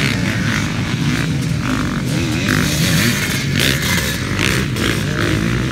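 Several motocross bikes running hard along the track, their engines rising and falling in pitch as the riders work the throttle.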